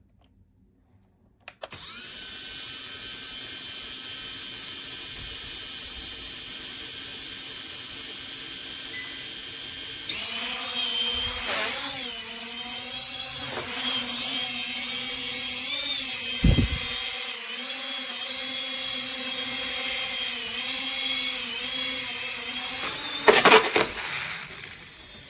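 A toy quadcopter's small electric motors and propellers whirring with a high whine. They get louder about ten seconds in and the pitch then wavers with the throttle. There is a single low thump partway through and a short clatter of knocks near the end.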